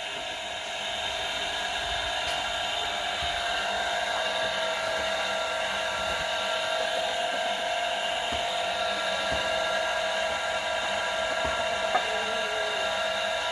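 A steady, unbroken mechanical drone made of many constant tones, like a small motor or fan running, with one sharp click about twelve seconds in.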